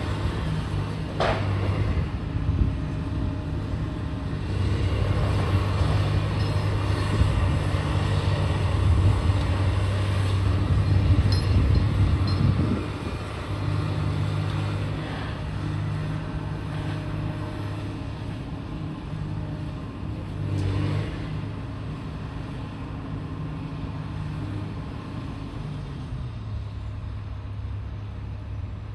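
Heavy diesel engine of demolition machinery running, working harder for several seconds and then easing off about halfway through. There is a sharp knock near the start and another about two-thirds of the way in.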